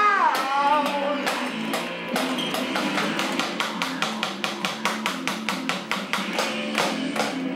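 Rock band music: a singer's held note at the very start, then a steady drum beat with bass guitar carrying on.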